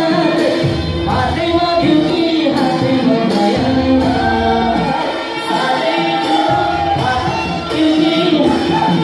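A song playing with singing over a regular beat.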